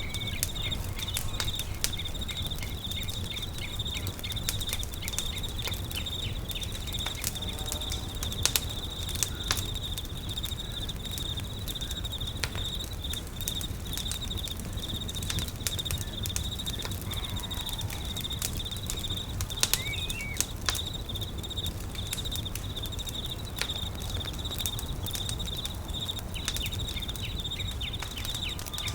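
Wood campfire crackling, with scattered sharp pops, over a steady high insect trill; a short bird chirp comes about twenty seconds in.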